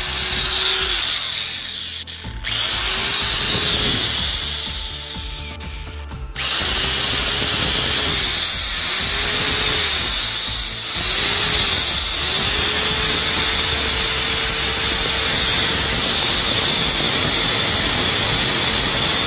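SKT SG-100N 500 W electric angle grinder running unloaded with no disc on its spindle. It is switched on and off several times, whining up to speed and winding down each time, then runs steadily through the second half.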